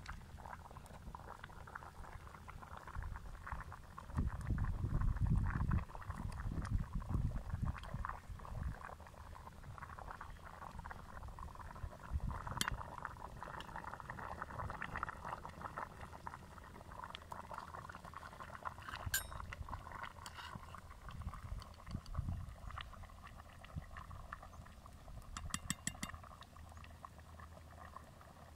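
A pot of abgoosht, a lamb and potato broth, bubbling steadily at a boil over a wood fire. A few light metal clinks come about 12 and 19 seconds in, with a quick run of clinks near the end, and a low rumble rises for a few seconds about four seconds in.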